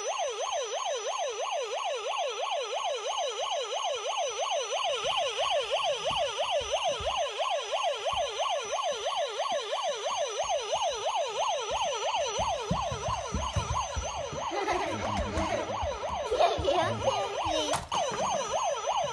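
Electronic siren of a Hess toy fire truck, a fast up-and-down wail at about four sweeps a second, running without a break. From about two-thirds of the way in, knocks and rattles from the toys being pushed around on the floor are added.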